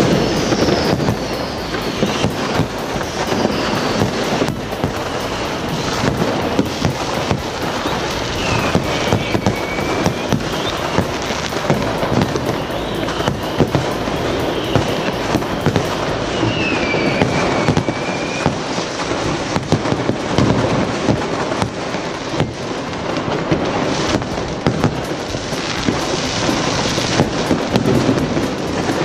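New Year's fireworks going off all around without pause: constant crackling and bangs of firecrackers and rockets, with several whistling rockets sliding down in pitch.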